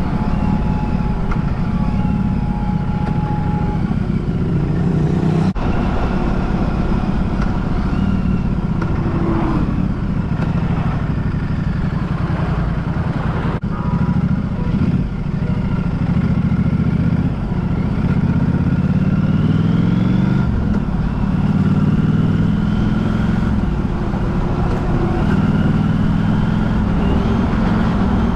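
A road vehicle's engine running while driving, its pitch repeatedly rising and falling as the speed changes, with two brief clicks along the way.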